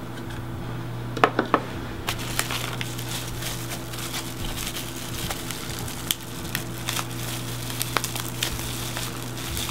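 Clear plastic parts bag crinkling and crackling as it is handled in the hands, with scattered sharp clicks. A couple of louder clicks come a little over a second in. A steady low hum runs underneath.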